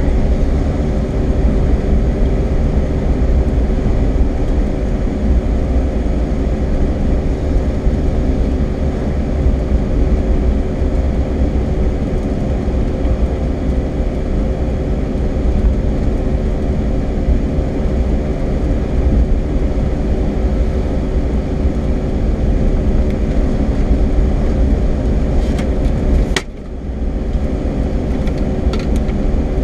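Car driving slowly, heard from inside the cabin: a steady low rumble of road and engine noise with a faint constant hum. About three-quarters of the way through the loudness dips briefly, with a couple of faint clicks.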